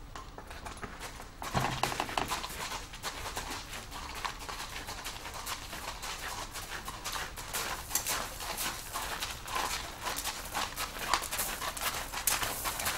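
A Thoroughbred stallion's hooves clopping on hard ground: a run of irregular knocks and clicks, starting with a louder knock about a second and a half in.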